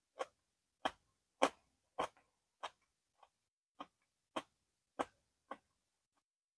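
A person chewing food with the mouth closed, close to a clip-on microphone: a regular series of short wet crunches and mouth clicks, roughly one every half second, with a short gap about three seconds in.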